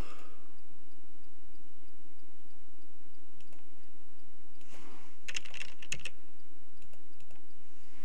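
A quick run of sharp clicks from the computer's mouse and keys about five seconds in, with a few faint clicks before it, over a steady low hum.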